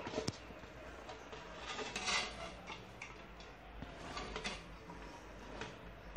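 Kitchen handling sounds: light clicks, clinks and rustles of utensils and ingredients at a cooking pot. There is a sharp click near the start and a short burst of rustling about two seconds in.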